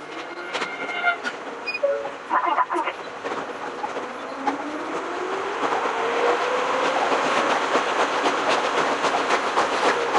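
Ohmi Railway 100 series electric train (ex-Seibu 101 series) pulling away and gathering speed: the traction motor whine rises in pitch, and wheels click steadily over the rail joints in the second half.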